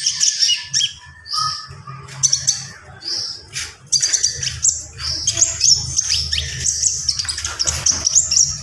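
Konin songbird singing continuously in a fast, unbroken run of high chirps, twitters and short trills, in full voice with mimicked phrases worked in ("full isian"). A low steady hum lies underneath.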